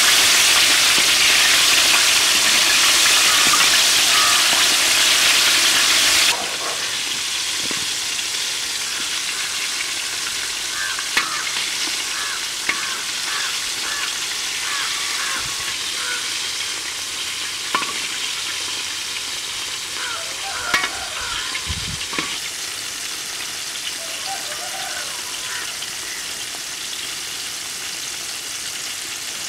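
Coated chicken drumsticks deep-frying in hot oil in a wok, a steady sizzle that drops suddenly to a softer sizzle about six seconds in. A few sharp clicks of the metal skimmer against the wok as the pieces are turned.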